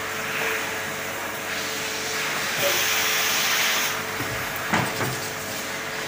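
Vacuum-chamber helium leak test machine running with a steady hum. A hiss of air lasts about a second and a half near the middle, followed by a single knock.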